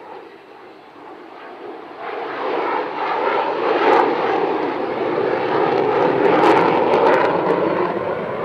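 Avro Vulcan XH558's four Rolls-Royce Olympus turbojets during a display pass: steady jet noise that swells sharply about two seconds in and stays loud, with a few sharp crackles.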